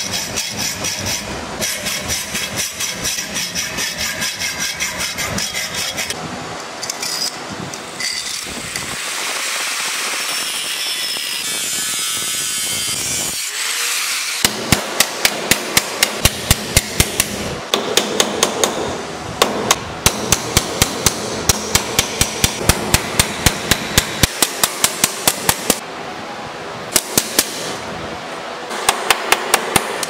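Hacksaw sawing through a copper pipe clamped in a bench vise, in even strokes. From about halfway, a hammer strikes metal on the vise in quick, sharp, regular blows, about four a second, with short pauses.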